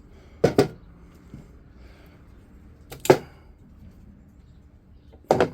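Heavy scrap from stripped microwaves, the transformers among it, knocking down as it is handled for weighing. There is a quick double knock about half a second in, another about three seconds in and one near the end.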